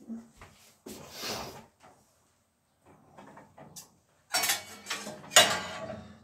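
Metal pots, pans and a lid clattering and scraping on a gas stove as they are moved about, starting about four seconds in with the loudest knock near the end. Before that, only a short rustle and a few faint clicks.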